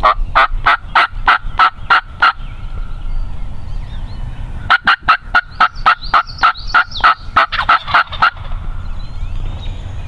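Wild turkey yelping: a run of about seven evenly spaced yelps, roughly three a second, then after a pause of a couple of seconds a longer run that quickens near the end.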